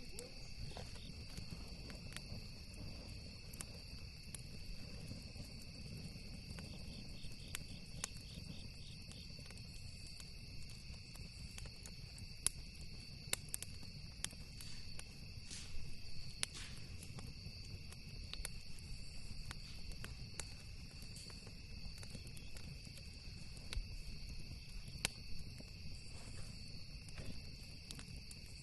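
Campfire crackling, with scattered sharp pops, several of them between about twelve and seventeen seconds in and another about twenty-five seconds in. Under it run a steady high insect trill and a low rumble.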